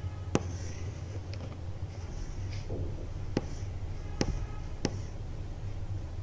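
Kitchen knife cutting an onion on a wooden cutting board: four sharp, unevenly spaced knocks of the blade meeting the board, with faint crisp slicing sounds between them, over a steady low hum.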